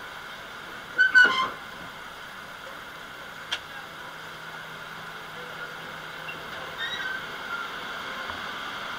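Steady hiss of a passenger train's interior at the carriage door as it arrives at a station, with a brief high-pitched squeal about a second in and a single sharp click a couple of seconds later.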